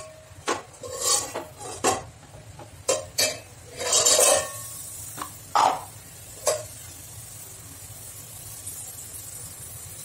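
Steel spoon scraping and clinking against the inside of an aluminium pot as ghee is scooped into it: a run of sharp clinks and scrapes over the first six and a half seconds, the loudest scrape about four seconds in. After that only a faint steady hiss.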